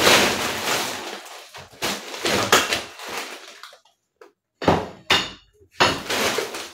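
Plastic shopping bag rustling and crinkling as groceries are pulled out of it, then a brief lull and a few sharp knocks of items being set down on a countertop about five seconds in.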